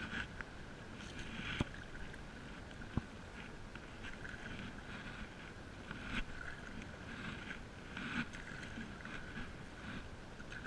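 Stand-up paddle strokes in calm water: the paddle blade splashing and dripping in short bursts every second or so over a low water rumble, with two sharp clicks in the first few seconds.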